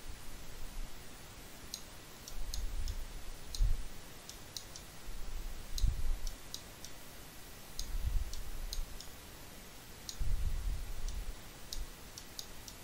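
Computer mouse buttons clicking, about twenty short, sharp clicks at irregular spacing. Four stretches of low rumbling bumps come and go between them and are the loudest parts.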